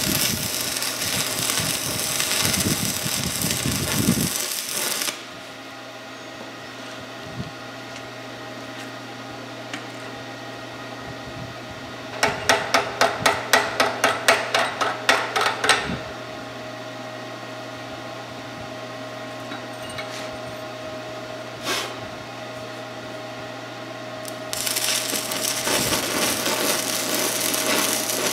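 Forney Easy Weld 110 stick welder's arc crackling and sputtering for the first few seconds, then cutting off to leave a steady low hum. A quick run of about a dozen sharp hammer strikes follows, typical of knocking slag off a stick weld, then a single knock. The arc is struck again and crackles near the end.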